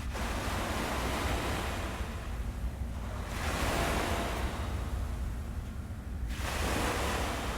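Ocean surf washing in, a new wave surging in about every three seconds and hissing away, over a steady low rumble.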